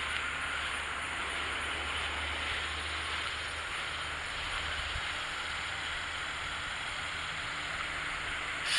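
Steady outdoor background noise: an even hiss with a low rumble underneath that eases off about three seconds in, and no chiming or other distinct sound.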